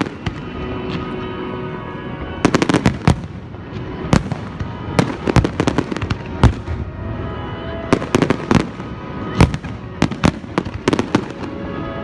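Fireworks going off in quick clusters of sharp bangs and crackles, over steady background music.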